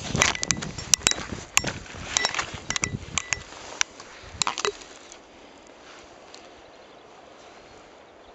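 Handling noise from a handheld camera being moved and set down among river stones: sharp clicks, knocks and rubbing through the first five seconds or so, then only a quiet steady hiss.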